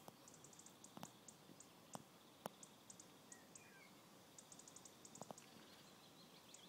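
Near silence: a few single soft crunches from a cat finishing off a mouse, with faint high-pitched ticking in short quick runs and a brief chirp a little after three seconds in.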